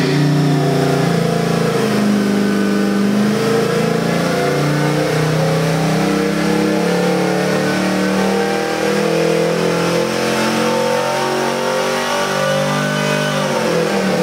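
Supercharged 406 cubic-inch small-block Chevy V8 with a 6-71 blower running under load on an engine dyno during a power pull. The revs climb slowly and steadily from about 3,300 to about 4,900 rpm, then the pitch drops near the end as the pull is ended.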